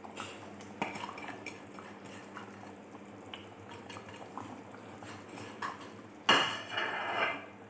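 Light scattered taps and clinks as chopped fresh coriander is sprinkled and tapped off a plate into a steel cooking pot, then about six seconds in a louder ringing clatter of kitchenware lasting about a second.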